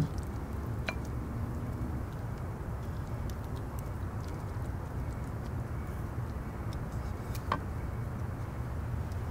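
Steady low rumble of background noise, with a sharp click about a second in and another late on.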